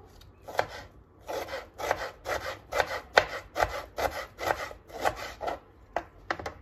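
Kitchen knife finely chopping red and green peppers on a plastic cutting board: short scraping cuts, about three a second, starting about half a second in.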